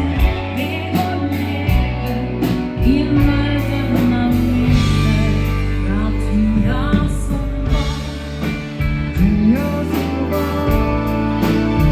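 Dance band playing live: a singer over guitar, bass and a steady drum beat.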